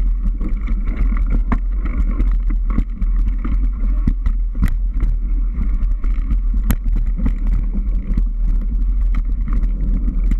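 Mountain bike riding fast down a rough forest trail: a steady wind rumble on the microphone, with frequent rattles and knocks from the bike jolting over roots and bumps.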